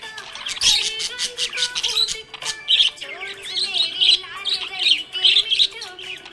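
Budgerigars chirping and chattering in a fast, continuous warble of short high chirps, with steady background music underneath.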